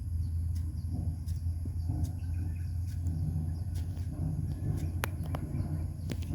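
Outdoor ambience: a steady low rumble with faint bird chirps, and a few sharp clicks or taps about five and six seconds in.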